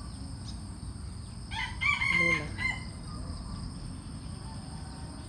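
A red junglefowl rooster crows once, a short, clipped crow of just over a second starting about a second and a half in. A steady high insect drone continues behind it.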